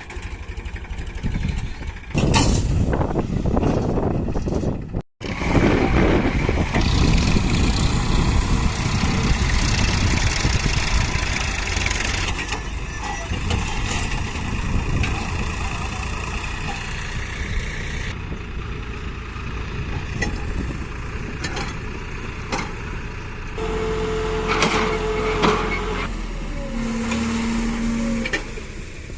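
Diesel engines of heavy farm and earth-moving machinery running under load, with the sound changing abruptly once or twice. Near the end come two short steady tones, first a higher one and then a lower one.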